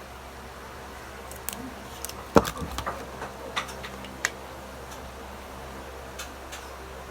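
Small plastic clicks and knocks of a remote control and its batteries being handled and tried in the battery compartment: a sharp knock about two and a half seconds in is the loudest, with a scatter of lighter clicks around it, over a steady low hum.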